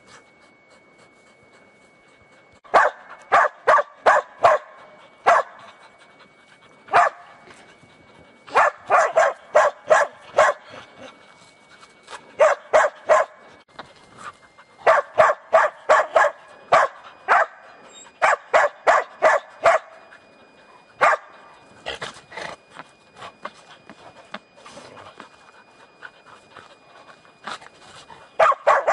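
Hunting dogs barking at a wild boar they are holding at bay. The barks come in quick runs of several a second, with short pauses between runs, starting about three seconds in.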